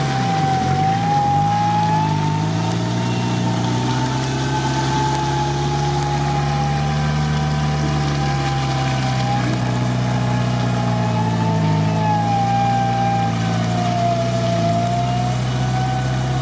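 Off-road engine running steadily under load as a Suzuki Samurai crawls through deep mud on a tow line. A whine rides over it, wavering slowly up and down in pitch.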